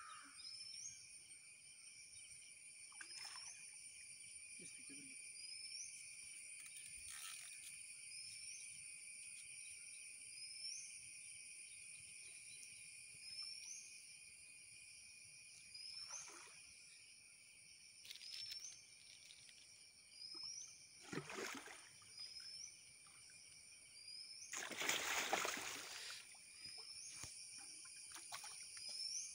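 A hooked fish splashing and thrashing at the water's surface as it is played in to the bank, in several short splashes with the biggest and longest about 25 seconds in. Behind it runs a steady high insect drone and a short rising chirp repeating roughly every second and a quarter.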